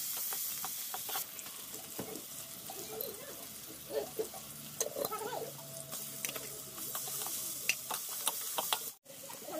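Sliced onions sizzling in hot oil in an iron wok, with a steel ladle scraping and clinking against the pan as they are stirred.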